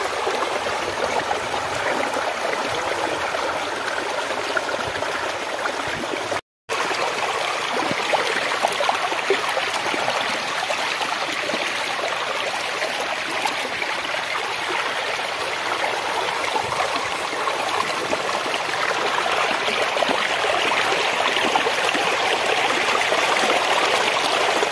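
Fast floodwater rushing over and through a submerged bamboo-and-log footbridge, a steady loud rushing of river current. It breaks off for a split second about six seconds in.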